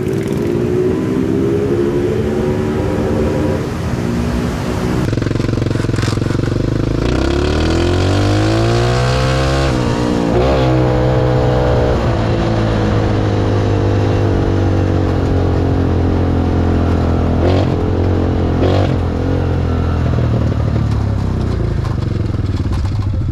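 Small engine of a homemade cardboard-bodied airplane go-kart running as it drives along the street; its pitch climbs as it accelerates about eight seconds in, then holds fairly steady, with a few brief clicks later on.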